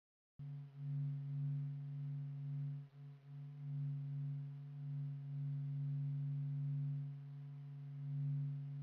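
Sonified space data: a low humming drone of a few held tones that starts abruptly about half a second in, swelling and dipping in loudness, with a brief dip about three seconds in.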